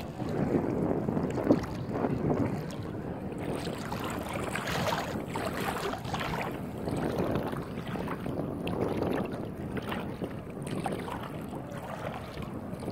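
Strong wind buffeting the microphone outdoors, a steady uneven rush.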